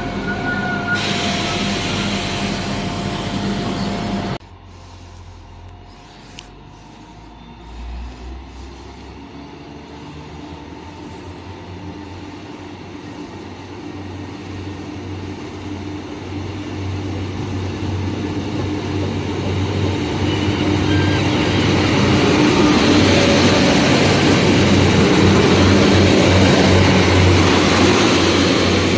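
Class 175 diesel multiple unit running at the platform; after a sudden cut about four seconds in, another Class 175 approaches from a distance, its diesel engines growing steadily louder as it draws alongside. A thin high whine comes in about eleven seconds in and holds.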